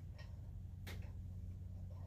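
Two faint clicks of small parts being handled, the second about a second in and sharper, over a steady low hum.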